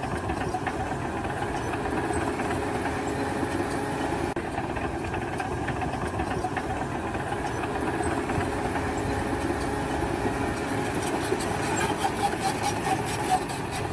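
A machine's engine running steadily at a constant level.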